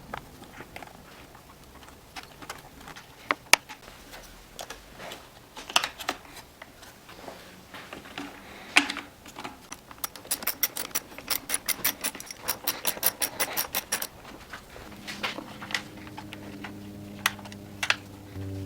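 Clicks and knocks of hand tools and small chainsaw parts being handled, with a fast run of even clicks, about five a second, lasting a few seconds midway. A faint steady hum comes in near the end.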